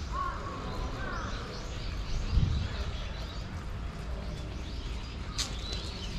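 Small birds chirping in quick, high, short calls throughout, with a crow cawing a few times in the first second, over a steady low outdoor rumble. A dull thump comes about two and a half seconds in, and a sharp click near the end.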